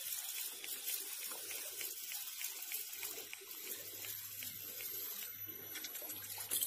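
A hooked fish splashing and churning the pond surface as it is pulled in on the line, a fairly steady watery sound without sharp single splashes.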